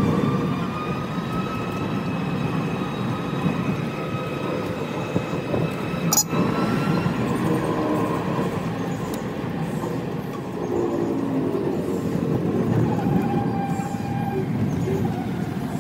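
Golf-cart-style resort shuttle driving along a paved road: steady rumble of the motor and tyres with a faint whine that drifts in pitch, and one sharp knock about six seconds in.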